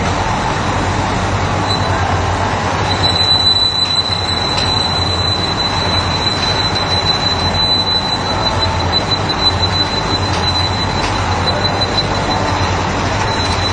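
Candy-bar forming and packaging line machinery running steadily, with conveyor and wrapping-machine noise over a low hum. A steady high-pitched whine sets in about three seconds in.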